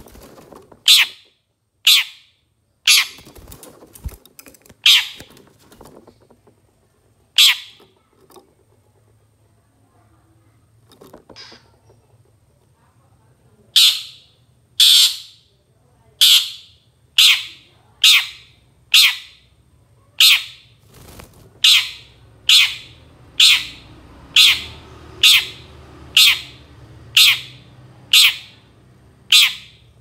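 Long-tailed shrike (cendet) giving short, harsh calls about once a second; after a few calls the bird falls quiet for several seconds, then runs on in a steady series of calls.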